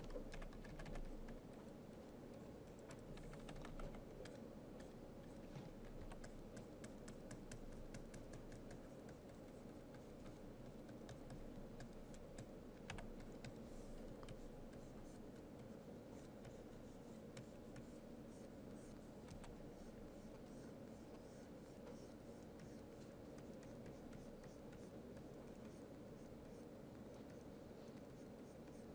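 Faint tapping and scratching of a stylus on a graphics tablet during brush strokes, with light keyboard clicks, over a steady low hum.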